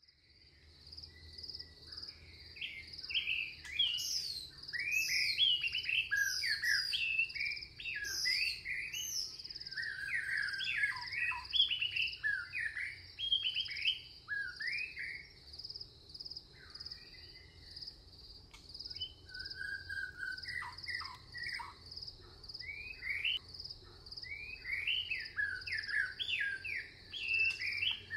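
Several birds singing and calling over one another in quick whistled notes that rise and fall, over a steady, high, fast-pulsing insect buzz.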